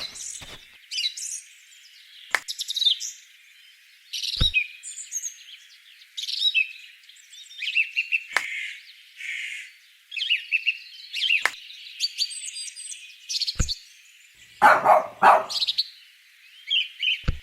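Many small birds chirping and tweeting in quick, varied calls, with a few sharp clicks scattered through and a short, louder burst of sound about fifteen seconds in.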